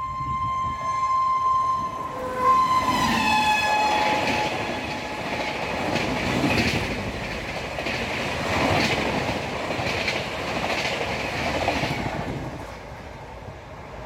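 A WAP-7 electric locomotive's horn sounds a long blast as it runs in, its pitch dropping about three seconds in as the locomotive passes. Then the Shatabdi Express coaches run past at speed with a loud clatter of wheels that swells every two seconds or so and fades near the end.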